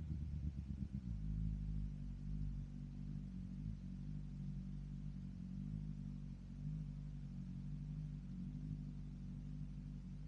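BMW S1000RR inline-four engine idling through its M4 aftermarket exhaust: a steady low engine note that settles about a second in, after an uneven stretch.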